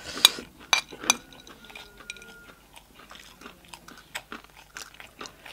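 Crunchy food being bitten and chewed close to the microphone, with a few loud crunches in the first second, then softer chewing clicks.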